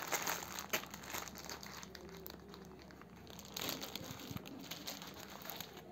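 Clear plastic protective wrap on a new headphone headband crinkling as the headphones are handled and put on. The crinkling is busiest in the first second, with another brief louder patch past the middle.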